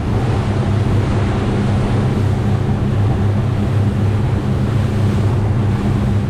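Fishing boat running at speed: a steady low engine drone under the rush of wind and water.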